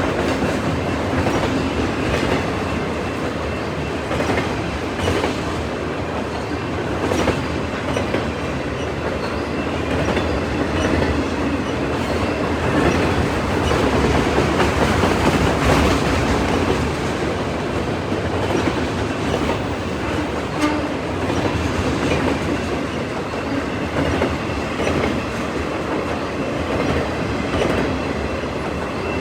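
CN freight train cars rolling past at steady speed: a continuous rumble with the wheels clacking over rail joints every second or two.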